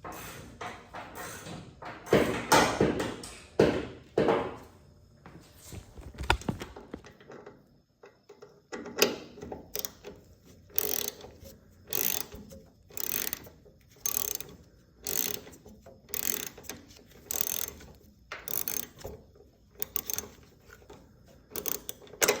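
A hand ratchet tightening the bolts of new car door hinges: clicking strokes, irregular at first, then a steady run of about one stroke a second through the second half.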